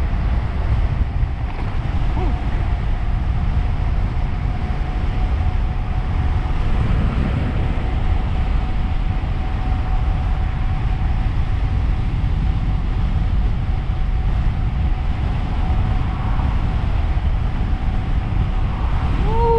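Wind buffeting the microphone of a fast-moving electric tandem bicycle, a heavy steady rush, with a thin steady whine from its dual hub motors at full power.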